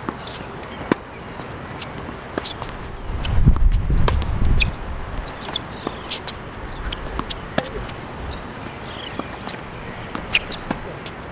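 Tennis ball being struck by rackets and bouncing on a hard court: scattered sharp pops with short high squeaks between them. A low rumble swells for about a second and a half about three seconds in.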